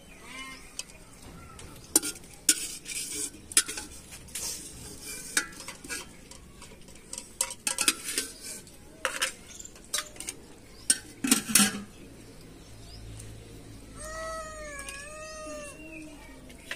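Steel plates and bowls clinking, and a metal ladle knocking and scraping in an aluminium cooking pot, in a run of sharp irregular clinks. Near the end comes a drawn-out wavering call of about two seconds.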